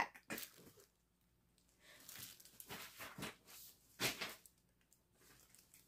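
Clear plastic wrapping around a large cardboard box crinkling and rustling as it is handled, in a few short, soft spells.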